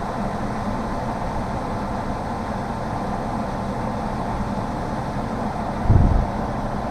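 ZOKOP 13,000 BTU portable air conditioner running on its high fan setting: a steady rush of air and motor noise. A short low bump sounds about six seconds in.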